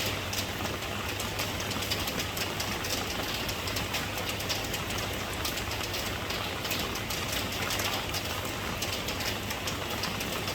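Steady rain, a dense patter of individual drops over an even hiss, with a steady low hum underneath.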